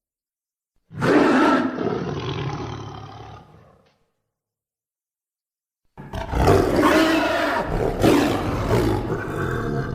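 Two roar sound effects for a monstrous character: the first starts about a second in and fades out over about three seconds; the second, longer and wavering, starts about six seconds in.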